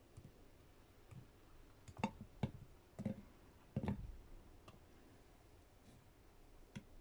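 A handful of light taps and clicks as blueberries are set down one by one on a ceramic serving plate. The loudest taps fall about two to four seconds in.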